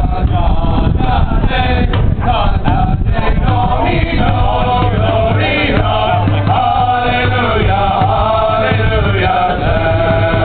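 Several voices singing together in a chant-like song.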